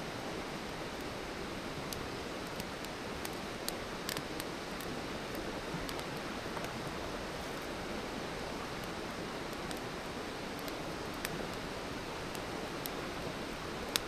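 Wood campfire burning: a steady hiss with scattered sharp crackles and pops.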